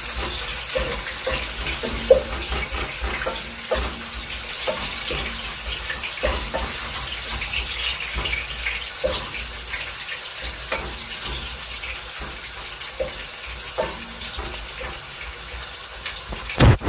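Onions frying in hot oil in a pot, a steady sizzle, stirred with a wooden spoon that knocks lightly against the pot now and then, with one sharper knock near the end.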